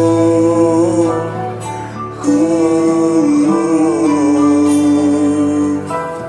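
Instrumental outro of a pop ballad's karaoke backing track: a melody in long held notes with a little vibrato over a steady low bass note.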